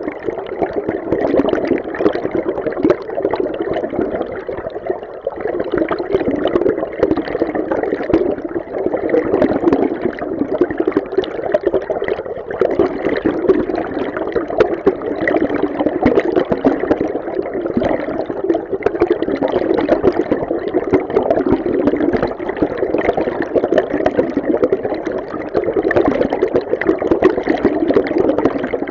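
River stream water heard underwater: a steady, muffled rush full of dense bubbling and crackle, swelling and easing a little from moment to moment.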